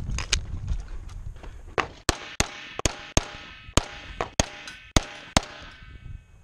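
A rapid string of about ten pistol shots from an EMG Customs .38 Super Comp race pistol. Two quick shots come first, then after a pause of over a second a run of shots about every half second, with a metallic ringing hanging between the later shots.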